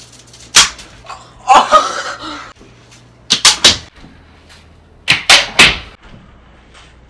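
Sharp smacks and clacks, single and then in clusters of two or three, of hard-shelled Sixlets candy hit by a spinning ceiling fan's blades and flung against the walls and door, over the fan's steady low hum.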